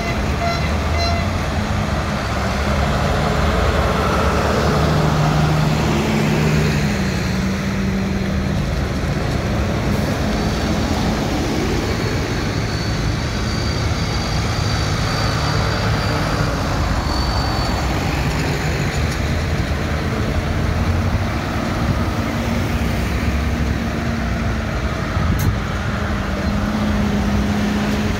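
Diesel tractor engines from a procession of New Holland and John Deere tractors running as they drive slowly past one after another, with tyres hissing on the wet road.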